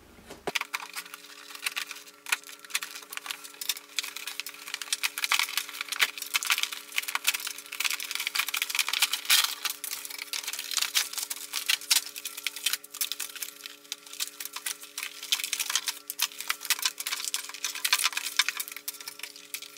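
Toy packaging being opened by hand: cardboard, plastic and paper packing crinkling and rustling, with many sharp clicks throughout. A faint steady hum lies underneath.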